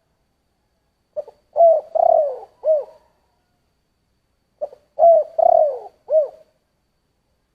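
A spotted dove cooing, in the voice type Vietnamese keepers call 'thổ'. It gives two phrases, each of four or five short arching coos, the first about a second in and the second about four and a half seconds in.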